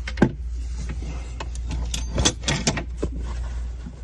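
Hands rummaging for dropped lock pins among tools and parts: scattered small clicks and knocks, a sharp one just after the start and a cluster of them about two to three seconds in, over a steady low hum.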